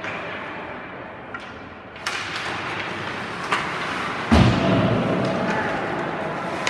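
Ice hockey play in an arena: a sharp stick clack about two seconds in as play starts from the faceoff, then skates and sticks on the ice, with a loud heavy thud a little past the middle.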